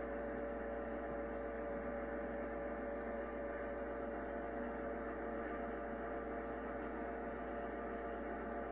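A steady hum and hiss with two held tones, as heard from inside a moving train.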